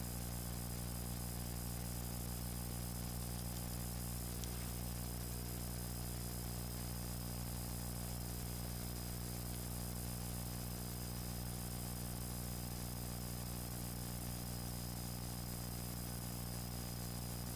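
A steady low hum made of several even tones, unchanging throughout, with one faint tick about four and a half seconds in.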